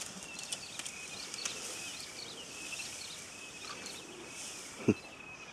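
Bush ambience: a steady high buzz of insects with birds chirping over it and a few faint cracks. There is one short dull thump about five seconds in.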